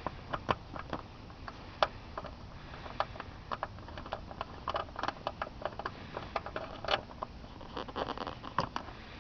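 A 1/4-inch ratchet with an 8mm socket clicking in short irregular runs as it backs out a motorcycle seat bolt, with small metallic ticks and taps in between.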